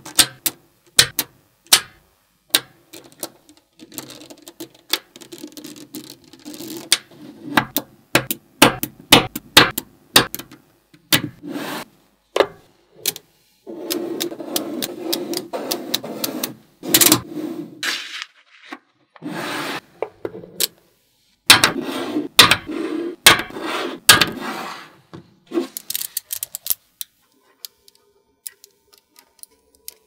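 Small magnetic balls clicking and snapping together as they are pulled apart and stacked by hand, with stretches of dense rattling where many balls roll and rub against one another at once. It thins to a few soft clicks near the end.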